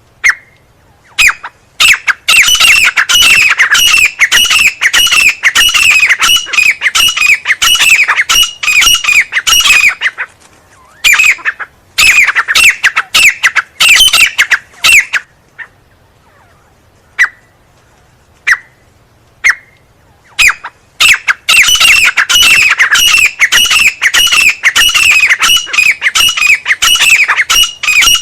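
Teetar (francolin) calling: long runs of rapid, repeated shrill notes, each dropping in pitch, broken by short pauses with single call notes in between.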